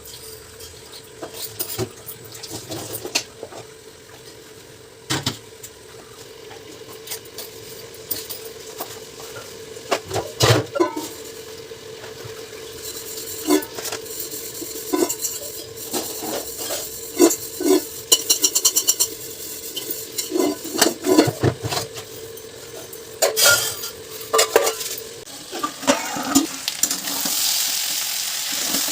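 Cooking sounds: a spoon clinking and scraping against metal pots and pans while food sizzles in the pan, the sizzle growing louder near the end. A steady hum runs underneath and stops a few seconds before the end.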